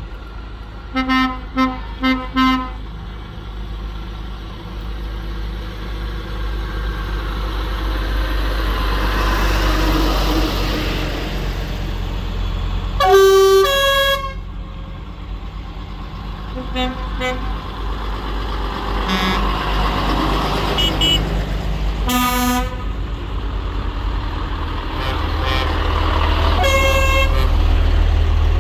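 Old vehicles driving past one after another, their engines rumbling louder and softer as each goes by. Horns toot over them: four quick toots about a second in, a loud blast of about a second midway, and several more toots later.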